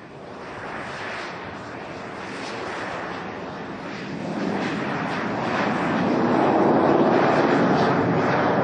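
Twin jet engines of a reproduction Messerschmitt Me 262 running at high power as it rolls down the runway. The rushing jet noise grows steadily louder, rising further about four seconds in.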